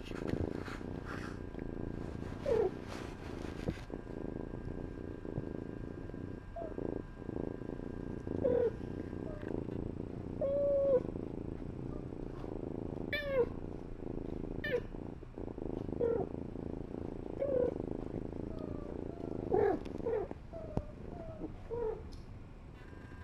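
Cat purring close to the microphone, with about a dozen short kitten mews spread through, and some rustling and knocks of fur brushing the microphone in the first few seconds.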